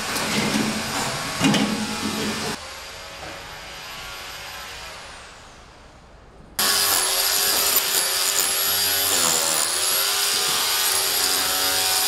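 A clatter of work noise for the first couple of seconds, then a quieter stretch. A little past halfway an electric rotary hammer drill starts suddenly and runs steadily with a wavering whine, chipping away fire-damaged plaster from a brick wall.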